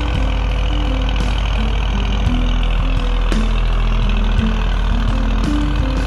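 A tractor engine running steadily as it pulls a plough, under background music with a simple stepping melody.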